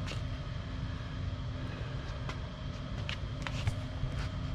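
A few faint, scattered clicks and taps of a screwdriver working a rubber fitting onto a fuel pump, over a steady low hum of background noise.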